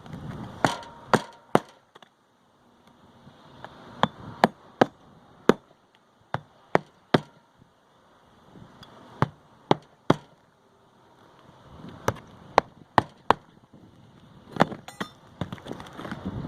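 Roofing hatchet hammering hand nails through asphalt shingles: sharp strikes in quick groups of two to four, one group per nail, with pauses between nails.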